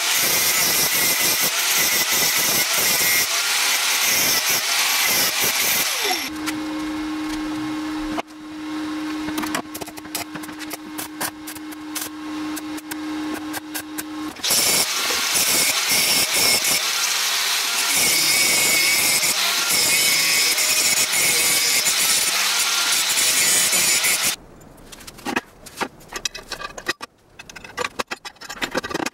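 Angle grinder cutting and grinding steel in two long runs of loud hiss. Between the runs is a quieter stretch with a steady hum and scattered clicks. Near the end, steel parts click and clink as they are handled.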